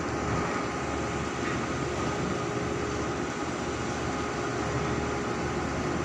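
Steady drone of ship's engine machinery, an unchanging low rumble with a faint constant hum.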